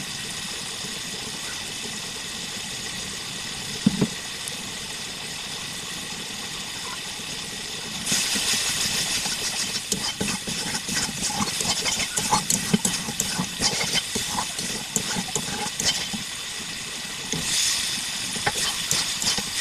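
Food sizzling in hot oil in a cooking pan, a steady hiss that grows louder and crackles more from about eight seconds in, with a single knock about four seconds in.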